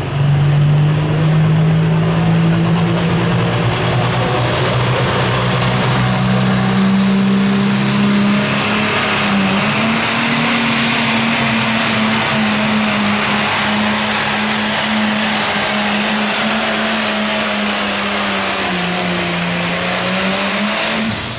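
A Ford 9600 Limited Pro Stock pulling tractor's turbocharged diesel engine running flat out under load as it drags the sled down the track. Its pitch climbs steadily over the first ten seconds and then holds high, with a thin high whistle rising partway in. The engine sags briefly and recovers near the end.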